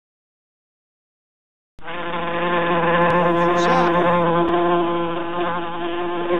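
Beetle buzzing in flight: a steady, even-pitched insect buzz that starts about two seconds in and runs for several seconds.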